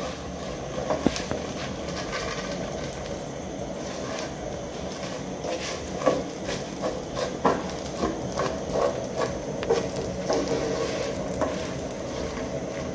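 Broken spaghetti frying in a little oil in a stone-coated pot, sizzling steadily while a spatula stirs it, with scattered clicks and scrapes of the spatula against the pot. The pasta is being toasted until it turns golden brown.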